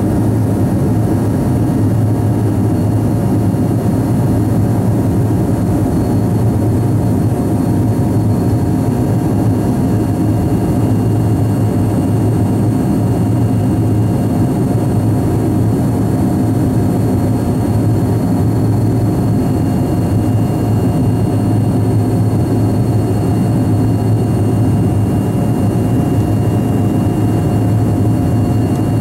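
The Lycoming ALF 502 turbofans of a BAe 146-100 at climb power, heard inside the passenger cabin: a steady low drone with a few faint steady whining tones over it.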